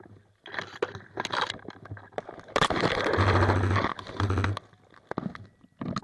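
Incoming airsoft BBs striking brush and foliage: a spatter of sharp cracks and snaps that thickens into a dense rattle of hits for about two seconds midway, then thins out to scattered hits.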